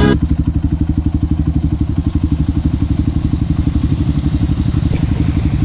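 Honda CRF150 dirt bike's single-cylinder four-stroke engine running at low revs, a steady, quick, even putter.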